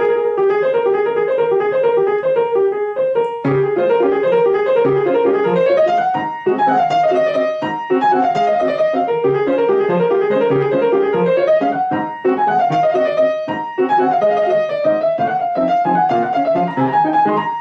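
Grand piano played with both hands, a steady run of notes. In two long stretches, from about six seconds in and again from about twelve, a wavering tone slides up and down over the piano.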